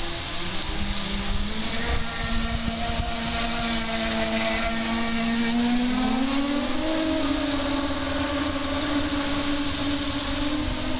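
Twin brushless outrunner motors of an RC race boat running with a steady pitched whine as the boat speeds across the water. The pitch climbs about six seconds in and holds higher.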